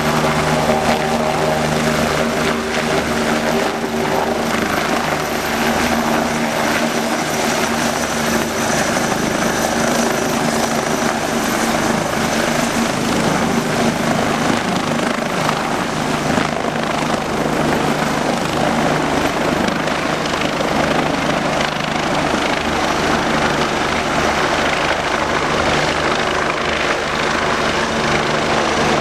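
Bell 429 twin-turbine helicopter taking off, hovering low and moving off: steady, loud rotor and turbine noise with a constant low hum.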